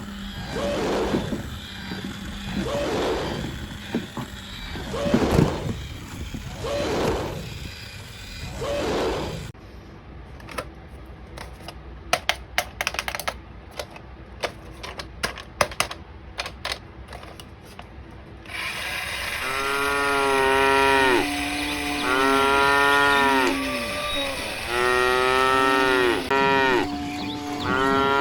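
Sound toys in turn: a sound repeating about once a second, then a stretch of irregular clicking like a walking toy's gear mechanism, then a toy playing a string of cow moos.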